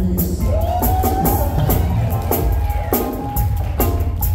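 Live reggae band playing: drum kit, bass, keyboard and electric guitars keeping a steady beat. About half a second in, a lead melody note rises and is held for about three seconds over the band.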